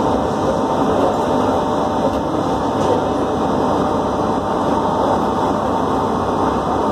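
Airport people-mover train running at speed through a tunnel, heard from inside the front car: a steady running rumble of its rubber tyres on the concrete guideway, with a faint steady hum in it.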